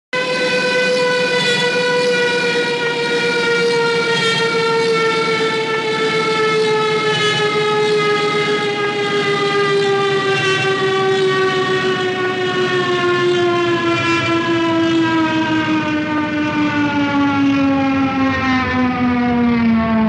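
Aircraft in a steep dive: one long, loud whine with many overtones that falls slowly in pitch, dropping faster near the end.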